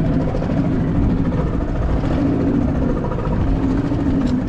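Boat's outboard motor running steadily in reverse, holding the drifting boat in position.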